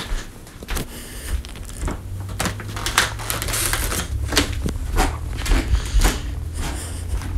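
Footsteps and knocks from handling the phone while walking with it: irregular sharp clicks about one or two a second, over a low rumble that grows louder about two seconds in.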